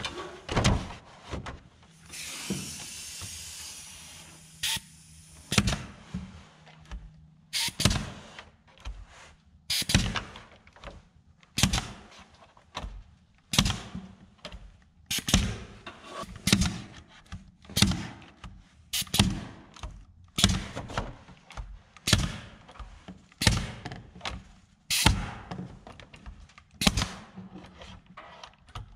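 Ridgid R150FSE pneumatic finish stapler firing, a steady run of about twenty shots roughly a second apart, driving 1½-inch staples at an angle through plastic rafter-vent baffles into the wood. The air pressure is turned way down so the staples don't blow through the roof sheathing.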